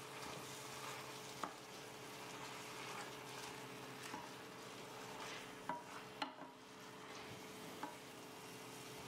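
Wooden spoon stirring spinach into chickpeas and tomato sauce in a stainless steel pan, with a faint sizzle and several light knocks of the spoon against the pan as the spinach wilts.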